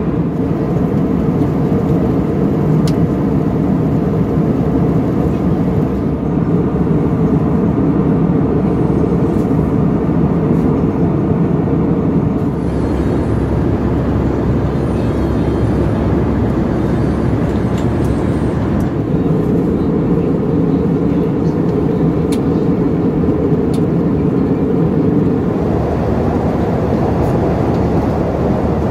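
Steady cabin drone of an Airbus A320-214 in flight, heard inside the cabin: CFM56 engine noise and airflow blended into an even roar, strongest in the low range.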